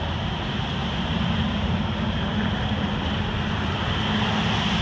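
Pickup trucks driving past on a wet road: a steady noise of tyres on the wet pavement and engines over a low rumble.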